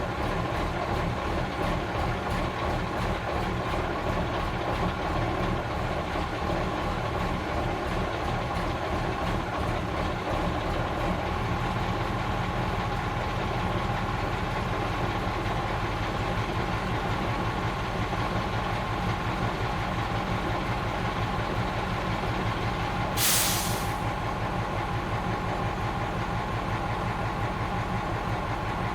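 Fire engine's diesel engine idling steadily. About two-thirds of the way through, a single short hiss of air-brake release cuts in.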